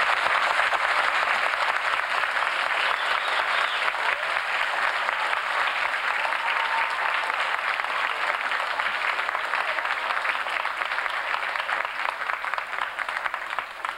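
Audience clapping: sustained applause from a seated crowd, dying away near the end.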